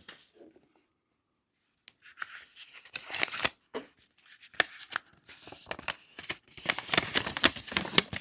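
Paper rustling and crinkling, with irregular crisp crackles and light taps, as the contents of a package are handled and a paper map is unfolded. It begins after a second or two of silence.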